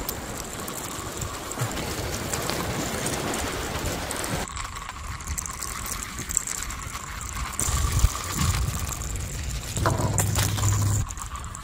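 Homemade toy beach buggy driving on its two small DC motors: a steady thin motor whine over rolling and rattling noise. The sound changes abruptly twice, about four seconds in and near the end.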